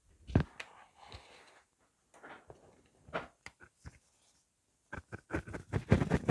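Hand sanding a knife with fine-grit sandpaper: short scratchy rubbing strokes and a few knocks as the knife is handled, the loudest knock about half a second in. The strokes come quick and close together in the last second or so.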